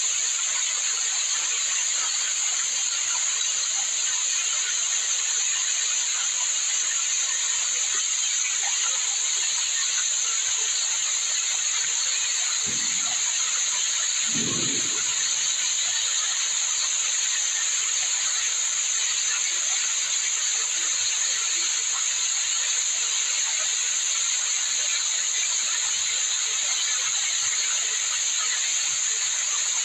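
Small waterfall pouring down a rock face and splashing, a steady hiss of falling water.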